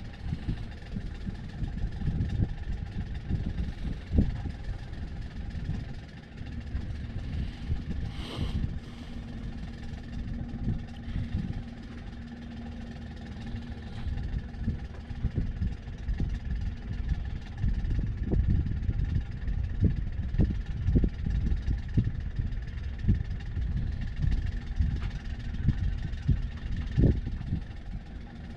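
Sailboat's engine running steadily while motoring, a constant drone, with gusty wind rumbling on the microphone. A brief hiss comes about eight seconds in.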